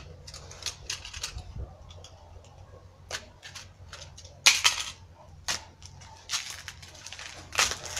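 Packaging wrap and tape being torn and crinkled off a bundle of rods: a run of short crackles and rustles, the loudest a little past halfway.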